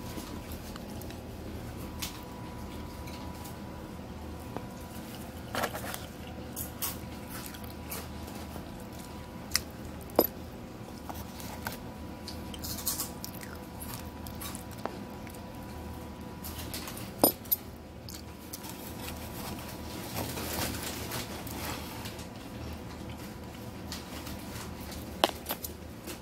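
Scattered light clicks and scrapes of a black plastic utensil against a styrofoam takeout container and the food in it, over a faint steady tone that stops about two-thirds of the way in.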